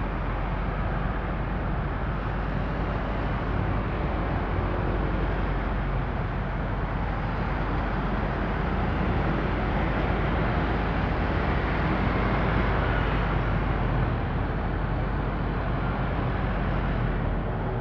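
Steady road and traffic noise from a moving vehicle in dense city traffic full of motor scooters, a little louder around the middle.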